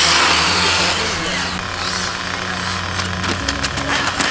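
Radio-controlled cars running on an asphalt track, a noisy motor-and-tyre hiss with a few sharp ticks near the end, over background music with a low bass line.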